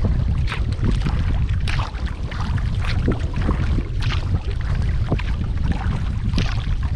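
Wind rumbling on the microphone from a kayak on open water, with irregular splashes and drips of water, about one or two a second.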